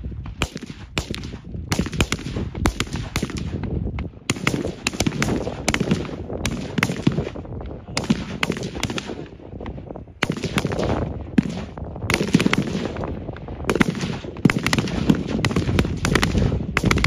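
Military rifle fire on a shooting range: many sharp single shots in quick, irregular strings, with brief lulls about four and ten seconds in.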